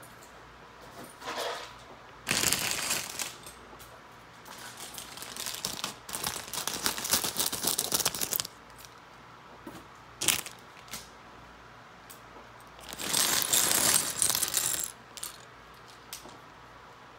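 Loose Lego pieces being shaken out of a plastic bag and clattering onto a tabletop, in several bursts of rattling. The loudest come about two seconds in and again about thirteen seconds in, with a longer run of rattling between about four and eight seconds and a single sharp click near ten seconds.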